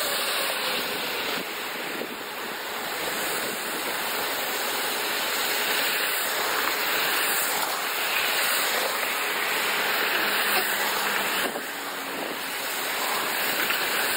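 Steady rushing hiss of storm wind and rain, with a brief dip about eleven and a half seconds in.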